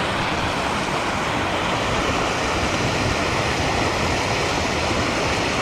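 Running water rushing steadily out of an outflow, an unbroken rush of noise.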